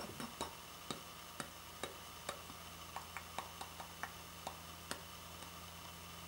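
Faint short ticks and clicks, about two a second, evenly spaced at first and then irregular, over a steady low hum.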